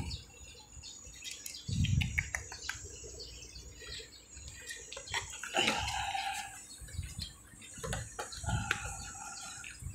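Birds calling and chirping, among them one call about halfway through that drops in pitch and then holds. A few low, dull thumps sound about two seconds in and again near the end.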